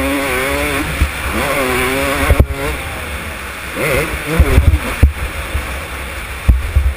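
Motocross dirt bike engine revving up through the gears and dropping back, its pitch climbing and falling several times. Heavy wind rumble and a few sharp knocks hit the helmet-mounted microphone.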